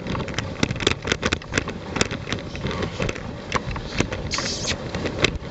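A dog-drawn rig running over a packed snow trail behind two dogs: a continuous low rumble of movement over snow, with many irregular clicks and rattles. A brief brighter hiss comes about four seconds in.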